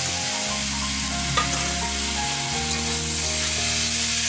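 Chopped vegetables frying in a metal wok over a wood-fired clay stove, a loud, steady sizzle, with the metal spatula knocking against the pan a couple of times as they are stirred.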